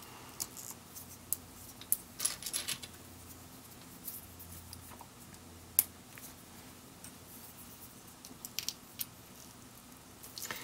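LEGO minifigure parts being snapped together and small plastic pieces handled: scattered light clicks and rattles, the sharpest single click about six seconds in.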